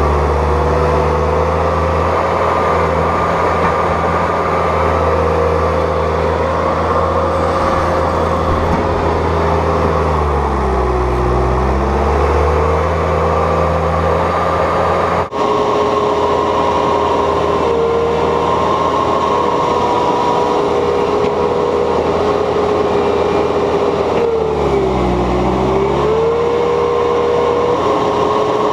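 Bobcat S250 skid steer's diesel engine running steadily at high throttle. Its pitch sags and recovers twice, around ten seconds in and again near twenty-five seconds, as the engine lugs down under load pushing heavy wet loam.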